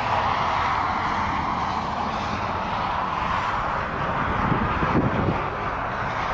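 Case 590SM loader backhoe's diesel engine running steadily, with a couple of heavier surges about five seconds in.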